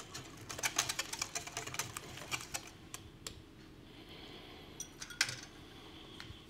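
Wire whisk clicking against the sides of a glass mixing bowl as it stirs thick batter, a quick irregular run of clicks for the first few seconds that thins out, with one sharper knock a little after five seconds.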